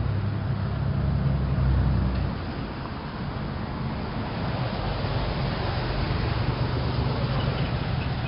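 Old-time city street ambience: a motor vehicle engine running with a low rumble over a steady street hiss. The rumble eases about two seconds in and swells again about halfway through.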